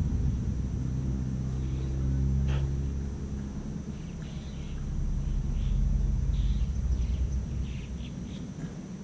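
A low, steady motor rumble with a hum in it, fading out toward the end, with short bird chirps in the second half.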